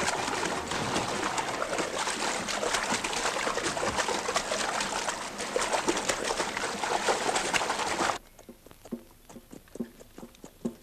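Horses' hooves splashing and churning through a shallow stream, a dense, continuous splashing of water. About eight seconds in it cuts off abruptly, leaving only faint scattered knocks.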